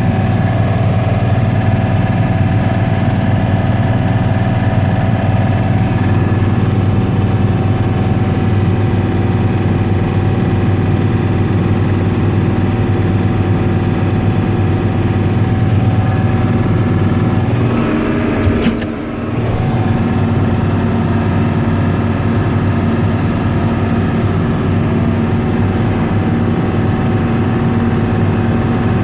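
Combine harvester running steadily while harvesting wheat: a loud, even drone of engine and threshing machinery. There is a brief dip and a sharp click about 19 seconds in, after which a new steady hum joins.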